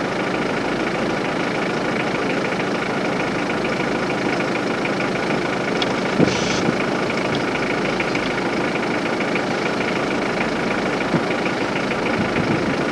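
Safari vehicle's engine idling steadily, with a brief sharp knock about six seconds in.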